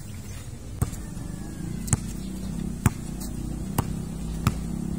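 Basketball dribbled on a concrete court, a sharp bounce about once a second. A motor vehicle's engine runs steadily in the background from about a second and a half in.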